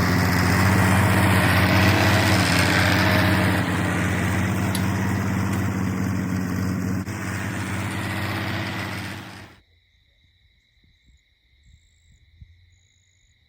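Wood-Mizer portable sawmill's engine running steadily at an even pitch; the sound cuts off suddenly about nine and a half seconds in.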